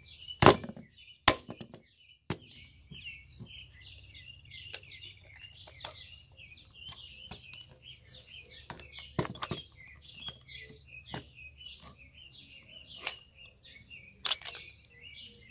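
Clicks and knocks of tools and parts on a starter motor being taken apart: three sharp ones in the first two and a half seconds, then lighter scattered ticks. Birds chirp steadily in the background.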